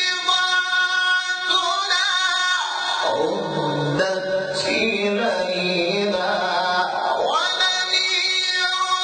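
Male voice reciting the Quran in the melodic, chanted style, holding long ornamented notes. The pitch drops to a lower register from about three to seven seconds in, then rises to high held notes again near the end.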